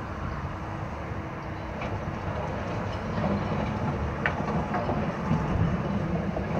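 Wheeled excavator's diesel engine running, pulling harder from about three seconds in as the bucket loads and the boom lifts. A couple of faint knocks of broken asphalt chunks in the bucket.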